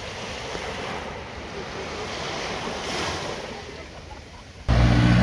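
Small waves breaking and washing up on a sandy beach, with some wind on the microphone. Near the end it cuts suddenly to a loud vehicle engine running.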